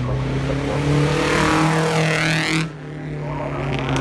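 Classic car's engine at high revs as the car passes close by at speed. The sound cuts off abruptly about two-thirds of the way in, and another engine is then heard more faintly.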